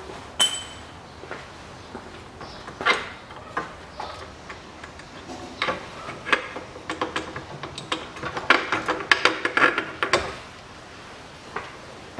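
Metal clinks and knocks as bolts are worked out of the engine mounts and the steel subframe, with a single ringing metallic ping about half a second in and a quick run of clinks from about seven to ten seconds.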